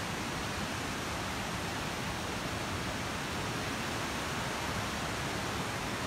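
Steady, even rushing of Mae Ya Waterfall's falling water.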